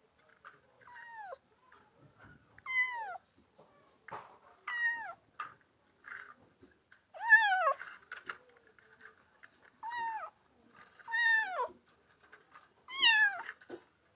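Kittens meowing: about seven short, high-pitched meows, each falling in pitch, every couple of seconds.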